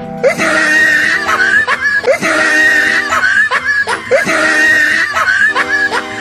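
Loud music that starts abruptly, with a pattern repeating about once a second and laughter-like voices mixed in.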